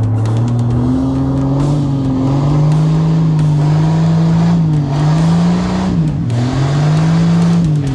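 Off-road 4x4 race buggy's engine revving hard under load on a mud climb, its pitch rising about a second in, then sagging and picking up again a few times as the throttle changes.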